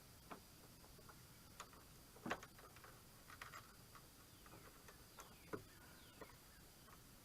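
Faint scattered clicks and light knocks from a fender brace bracket being handled and pushed into place, with a louder knock about two seconds in and another near five and a half seconds.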